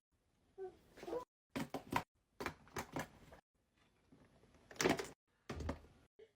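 Plastic fidget toys clicking and clattering as they are handled and set into drawer compartments, in about six short separate bursts with silence between.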